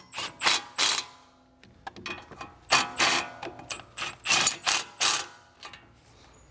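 Milwaukee FUEL cordless impact wrench running in several short bursts to run in and seat the E18 Torx brake caliper carrier bolts.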